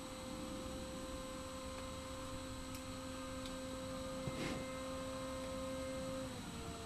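Steady whine of the AXN Floater RC plane's electric motor and propeller, a held tone with overtones whose pitch drops slightly near the end. A brief rustle about four seconds in.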